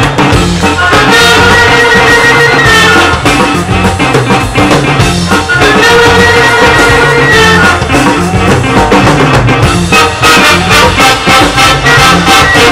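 Live jazz big band playing: drum kit and bass keep a steady beat under trombones and trumpets. The band holds long chords twice, about a second in and again about six seconds in.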